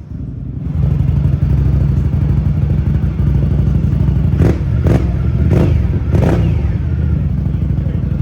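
Indian Scout V-twin motorcycle running through an Akrapovic exhaust, a steady deep engine note with four quick sharp bursts around the middle.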